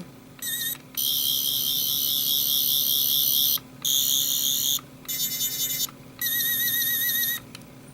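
Toy 10th Doctor sonic screwdriver playing its electronic sound effect: a high-pitched warbling buzz, set off five times in bursts from about half a second to two and a half seconds long.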